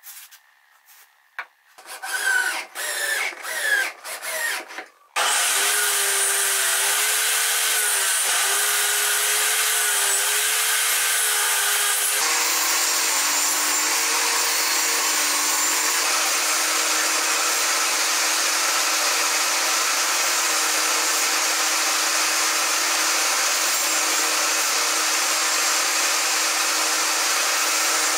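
A few short spray hisses and clicks, then, about five seconds in, a table saw starts up abruptly and runs loud and steady, cutting small mahogany pieces. Its tone shifts slightly about seven seconds later.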